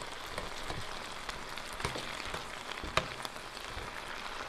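Vegetable stir fry sizzling and simmering in sauce in an electric skillet, with a few clicks and scrapes of a serving spoon stirring it against the pan; the sharpest click comes about three seconds in.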